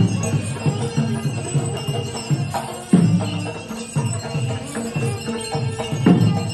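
Music: deep drum strikes at uneven intervals over steady held tones, with jingling bells.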